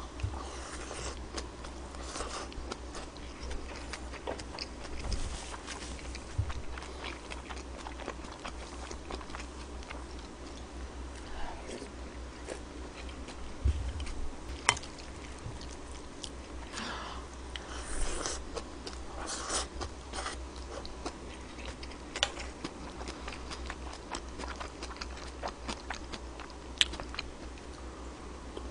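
A person chewing mouthfuls of pork-belly and bean-sprout rice, with a few sharp clicks along the way.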